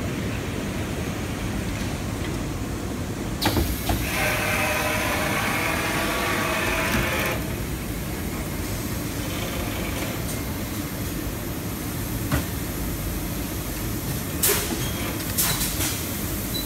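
Insulated glass robot coating machine and its conveyor running with a steady low rumble. There are several sharp clicks and knocks, and a louder hiss from about four seconds in that lasts about three seconds.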